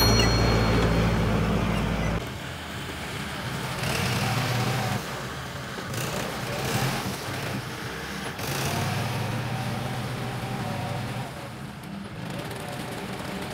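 Kubota tractor's diesel engine running steadily as it pulls a rotary tiller through flooded paddy mud. It is loud at first, then drops off about two seconds in and carries on quieter.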